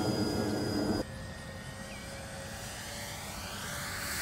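Twin electric motors and propellers of a Dynam B-26 Marauder 1500mm RC warbird humming steadily in flight. The sound drops abruptly about a second in, then slowly grows louder.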